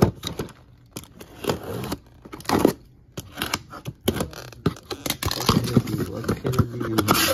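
Corrugated cardboard shipping case being torn open by hand: packing tape ripping and cardboard flaps scraping and rustling in a string of short rasps.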